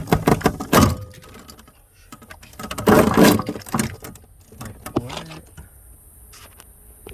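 Clicks, rattles and rustling from hands working at car wiring and terminals while a wire is pulled loose, with a louder rustling burst about three seconds in.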